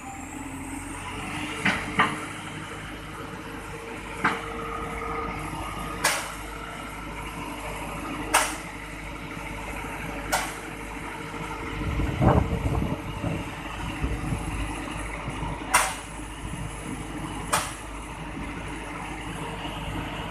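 A heavy machine's engine running steadily, with a sharp knock every two seconds or so and a louder low rumble about twelve seconds in.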